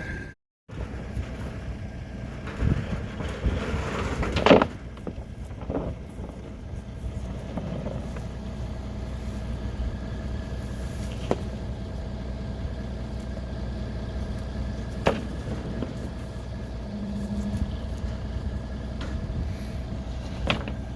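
An engine running steadily with a low rumble. A few sharp knocks come through it now and then, the loudest about four seconds in.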